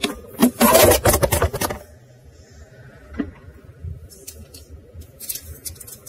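Rustling and clicking handling noise close to the microphone: a dense clatter for about a second and a half near the start, then scattered light clicks and rustles.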